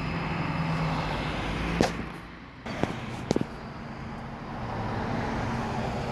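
Motor vehicle engine running with road-traffic noise, level dipping a little after two seconds before settling again, with a few sharp clicks in the middle.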